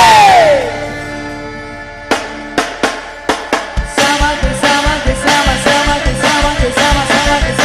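Quadrilha junina song with drums. A sung note slides down at the start and a chord rings out and fades, then scattered drum hits lead into a steady beat with the melody back from about four seconds in.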